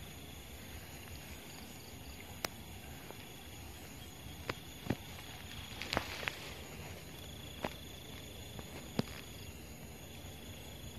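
Faint field ambience of insects calling in long, high trills that come and go, over a low hiss. About seven sharp clicks and taps are scattered through it.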